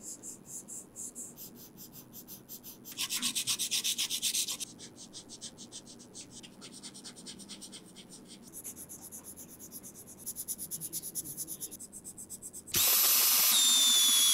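Coloured pencil scratching on paper in quick back-and-forth shading strokes, about six a second, in several runs, with one louder run a few seconds in. Near the end an electric pencil sharpener starts suddenly and grinds a pencil, loud, its motor whine dropping in pitch under the load.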